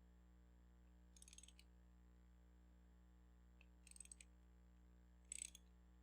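Faint ratchet clicking in three short runs, a socket ratchet on an extension being worked back and forth as it loosens a spark plug.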